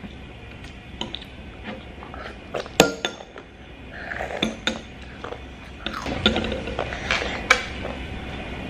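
Cutlery clinking against plates and bowls at a meal: scattered light taps and scrapes, with a few sharper clinks that ring briefly, the loudest a little under three seconds in and again near the end.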